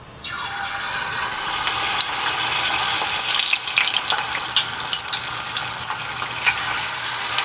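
Battered shrimp going into hot tempura oil: a loud sizzle that starts suddenly as it goes in, then a steady frying hiss with many sharp pops and crackles from about three seconds in.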